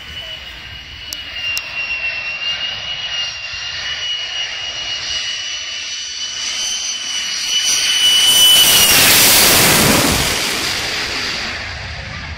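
Lockheed Martin F-35A's Pratt & Whitney F135 turbofan engine on approach, a steady high whine growing as the jet comes in low, then a loud rushing roar as it passes overhead about eight seconds in, the whine dropping sharply in pitch as it goes by, then fading.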